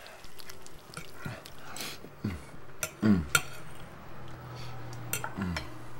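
Metal fork clinking and scraping on a dinner plate, with a few sharp clinks and some short low thuds, the loudest about halfway through.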